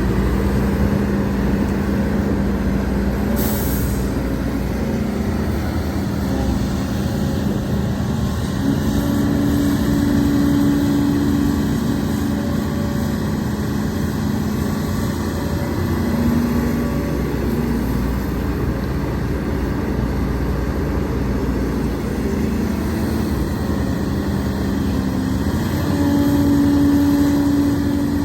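Hidromek HMK230LC excavator's diesel engine running steadily. Its revs step up to a higher tone twice, about nine seconds in and again near the end, where it grows louder. A brief hiss comes about three and a half seconds in.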